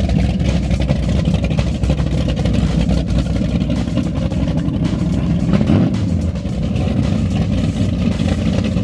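Twin high-performance engines of a Cigarette offshore race boat running at the dock, a loud, steady exhaust rumble with a short surge a little past halfway.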